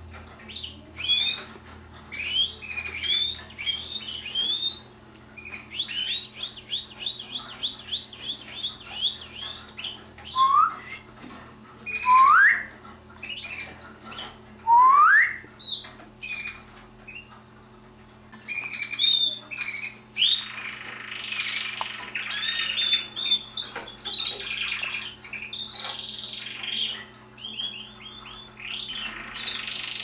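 Red canaries in show cages singing: quick runs of repeated chirps and trills, with three loud rising whistles near the middle and denser overlapping song later on.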